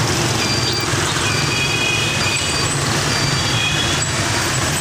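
Dense street traffic: a steady din of engines with many short, high horn beeps at several pitches.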